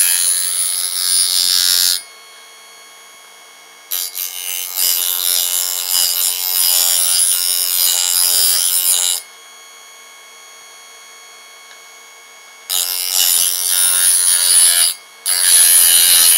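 Parkside electric sharpening station running while a knife blade is drawn through its guide slot against the grinding wheel: four loud rasping grinding passes, with the motor's steady hum carrying on quietly between them.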